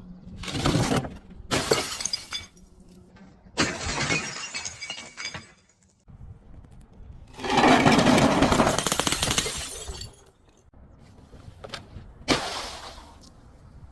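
Glass bottles breaking and being crushed, in five separate bursts of crunching and shattering glass. The longest and loudest burst comes in the middle and lasts over two seconds.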